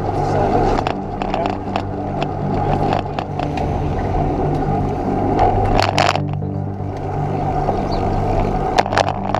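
Wind and road noise on a camera mounted on a road bike riding in a group, with scattered clicks and rattles from bumps in the road.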